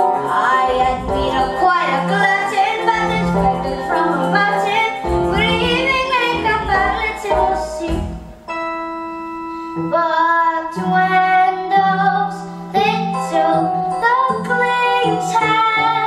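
Girls' voices singing a show tune on stage over instrumental accompaniment with a regular low beat. A little past halfway the voices stop briefly while held chords sound, then the singing resumes.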